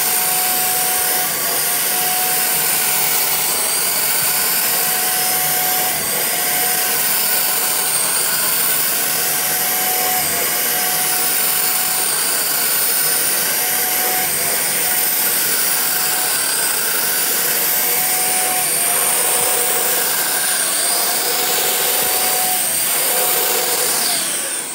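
Handheld electric paint sprayer running steadily while spraying finish onto a wood board, a high motor whine whose pitch dips slightly now and then. It dies away at the very end.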